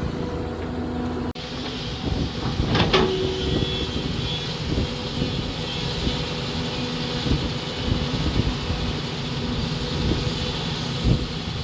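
Hyundai SMART 215L excavator's diesel engine running steadily as it digs, with a few sharp knocks about three seconds in.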